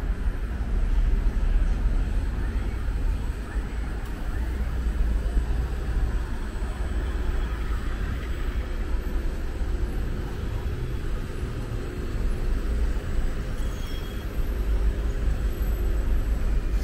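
Busy city street traffic: cars and city buses passing, with a steady low rumble of engines and tyres.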